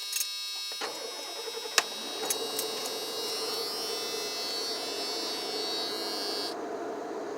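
1991 Ford E250 van being started: an electronic warning buzz from the dash sounds steadily and stops near the end. A steady running noise from the van comes in about a second in, with a sharp click shortly after.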